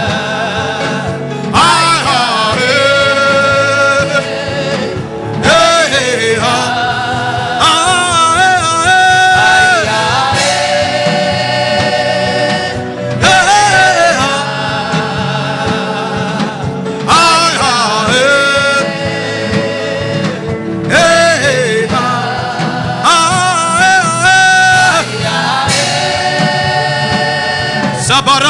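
Gospel worship music: a singer's voice in phrases of a few seconds with long held notes, over steady instrumental accompaniment.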